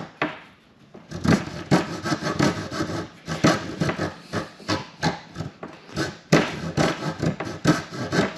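Hand coping saw cutting a cope joint in wooden trim molding, its thin blade sawing in quick, even back-and-forth strokes that start about a second in.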